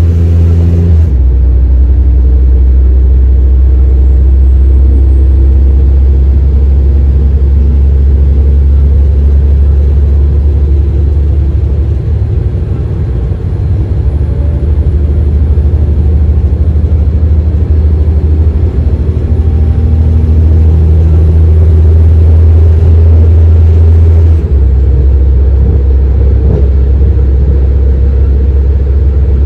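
Alstom Coradia LINT 41 diesel railcar's engines running while the train stands at the platform: a loud, steady deep drone with a faint high whine. The engine note shifts about a second in and again near the end.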